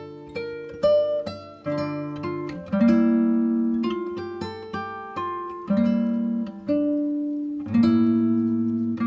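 Background music: an acoustic guitar playing plucked notes and chords, each note starting sharply and fading away.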